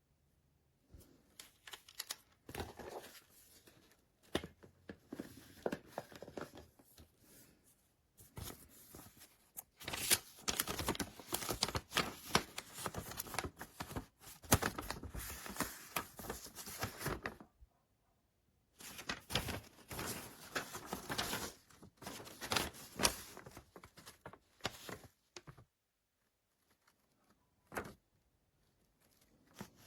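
Crinkly material being handled: rustling, crinkling and small clicks, in stretches of a few seconds broken by sudden silences.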